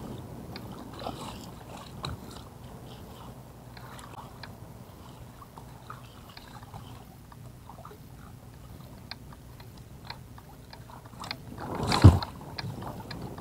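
Light, irregular clicks and rattles of a fishing rod and reel being handled aboard a small plastic boat, over a low steady rumble. About twelve seconds in, a single loud knock on the boat's hull.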